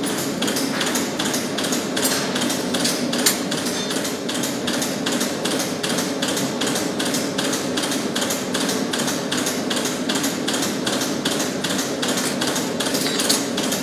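Steady, evenly spaced hammer blows on metal, about three a second, over the steady roar of a lit gas forge.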